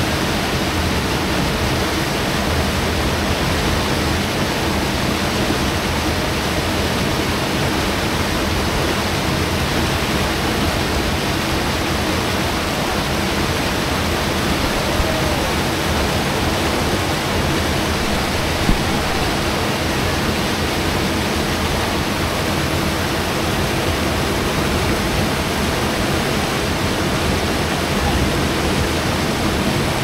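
Verzasca River rapids rushing over rock slabs: a steady, loud wash of white water, with one short knock about two thirds of the way in.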